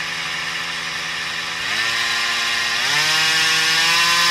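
Ford 8.8 differential's pinion spun by a power tool on its yoke, with the microphone pressed to the housing: a whine of several tones that steps up in pitch twice, about a second and a half in and again about three seconds in, getting louder after the second step. The whine comes from a cooked (failed) outer pinion bearing, the noise the vehicle made going down the road.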